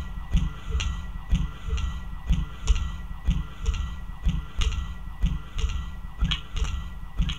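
Low, heartbeat-like double thumps repeating about once a second, under a steady high tone and faint electronic clicks: a soundtrack beat.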